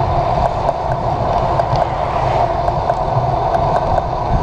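Wind rushing over a handlebar-mounted camera's microphone while riding a road bicycle, with the rumble of the tyres on the asphalt: a steady noise with no distinct events.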